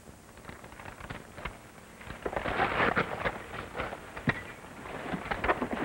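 Handling noises: a crackly rustle, thickest in the middle, with several sharp clicks scattered through it, one louder click near the end.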